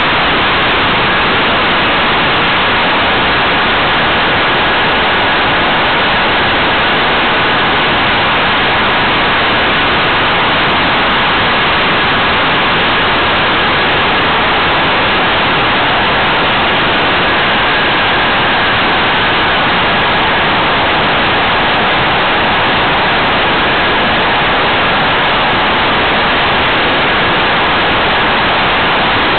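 Steady, loud rushing hiss of airflow over a small onboard camera on a radio-controlled model plane in flight, with a faint steady high whine underneath.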